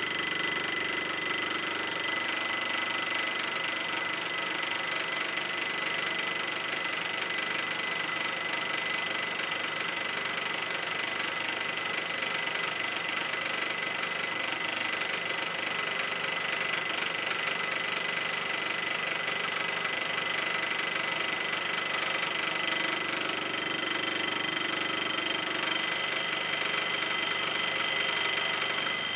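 Belt-driven air compressor, a Swan pump turned by a 3 hp electric motor, running steadily with a constant high whine. A second, higher whine grows stronger near the end.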